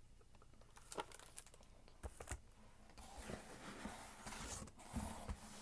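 Faint rustling and crinkling of packing material and cardboard as hands rummage in a shipping box: a few light knocks at first, then steadier rustling through the second half.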